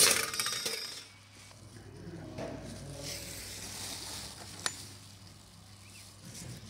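Crinkly aluminium flexible duct rustling and rattling as it goes into a wire shopping basket, loudest at the start and dying away within a second. Then soft handling and a single sharp clink of steel pipe end caps being picked out of a plastic bin, over a low steady hum.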